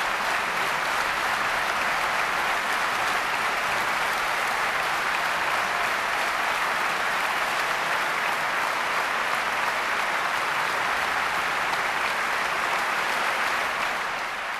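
Concert audience applauding steadily in a dense, even clapping that fades out near the end.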